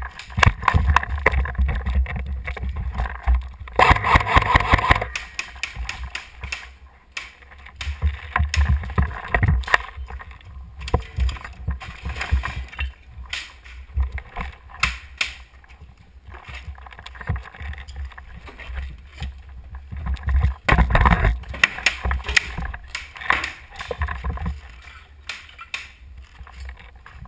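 Handling noise from a camera mounted on an airsoft rifle: irregular knocks, clicks and rumble as the gun is carried and moved, with footsteps over broken roof tiles and rubble. It is busiest around four seconds in and again a little after twenty seconds.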